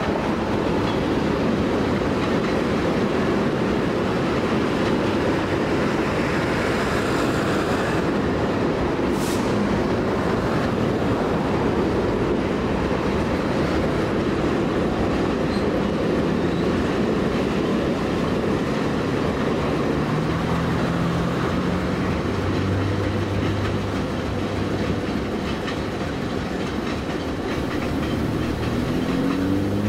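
Freight cars rolling past on the rails with a steady rumble and clatter of wheels, easing off a little near the end as the last cars go by. A low steady hum joins about two-thirds of the way through.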